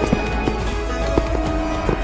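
Background pop music with a steady beat and a strong bass line.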